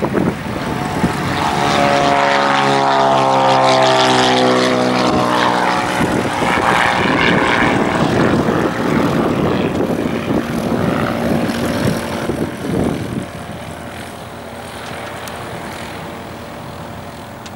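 Cirrus SR22's six-cylinder piston engine and propeller passing close while climbing away. The drone drops in pitch as it goes by, about two to five seconds in, then grows weaker after about thirteen seconds as the plane recedes.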